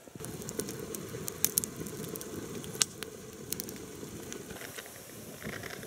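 Campfire of twigs and dry grass burning, crackling with scattered sharp pops over a steady low rush.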